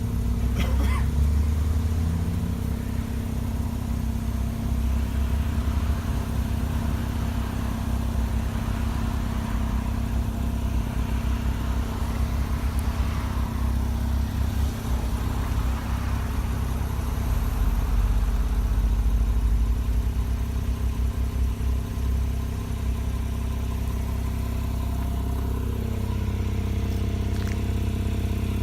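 Street traffic: a steady engine hum with low rumble, and cars swelling up and fading as they pass.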